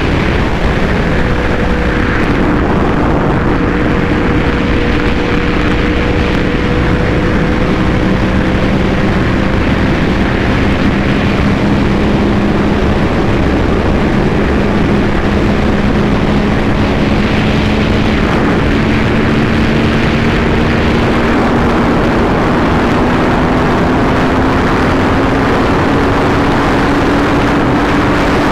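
Yamaha R1's inline-four engine pulling steadily at high speed in a high gear, its pitch climbing slowly as the bike gains speed, under heavy wind rush on the microphone.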